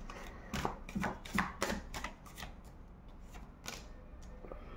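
Tarot cards being handled and laid down on a glass tabletop: a quick run of sharp taps and slaps in the first two seconds, then one more tap near the end.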